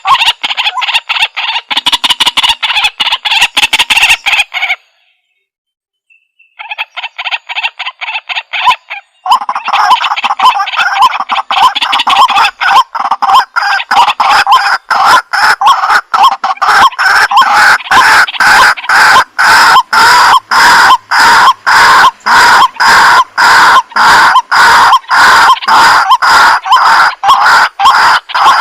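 White-breasted waterhen calling: a loud, fast, even run of repeated notes, several a second. It breaks off for about two seconds around five seconds in, resumes briefly, pauses again, then runs on steadily.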